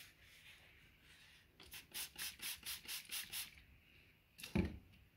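Kitchen roll rubbed around the inside of an empty Pringles can to wipe it clean: about ten quick scrubbing strokes, roughly five a second, over two seconds. A single dull thump comes near the end.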